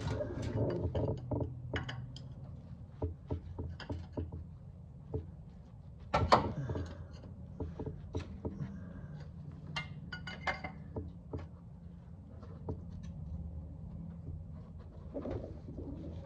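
A pry tool clicking, scraping and knocking against the stuck steel oil pan of a Subaru Forester's engine as it is worked loose, with a sharper knock about six seconds in and a quick run of clicks around ten seconds. A low steady hum runs underneath.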